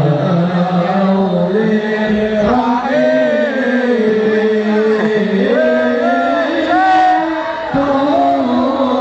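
Islamic devotional chanting of a salawat (praise of the Prophet), sung with an ornamented melody that slides between notes over a steady low held note.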